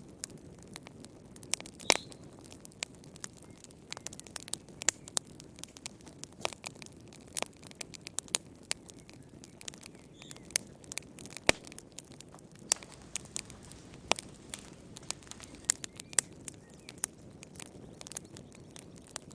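Wood fire crackling in a fireplace: irregular sharp pops and snaps, sometimes several close together, over a soft low hiss of burning.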